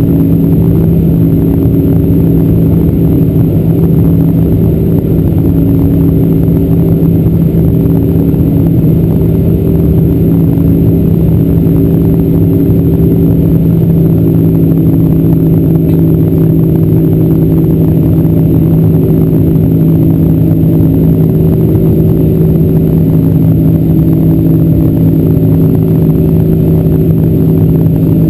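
Boeing 747-400's General Electric CF6 turbofan engines at climb power, heard inside the cabin near the wing. The drone is loud and steady, with a few steady humming tones in it.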